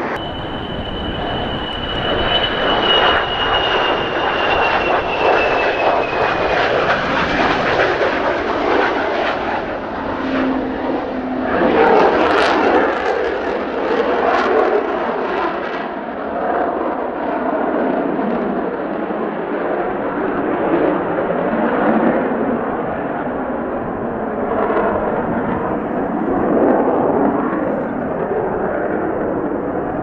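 Twin General Electric J79 turbojets of an F-4EJ Kai Phantom running at high power as the jet passes and climbs away. A high whine falls in pitch over the first several seconds, and a crackling patch comes about twelve to sixteen seconds in.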